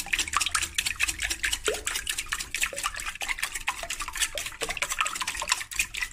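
Wire whisk beating raw eggs in a glass mixing bowl to loosen them: rapid, steady clicking of the wires against the glass with the wet swish of the liquid egg.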